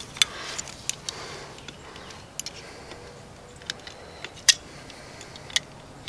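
Small metal clicks and taps from the parts of an air compressor pressure switch being handled and fitted together by hand, scattered irregularly, with the sharpest click about four and a half seconds in.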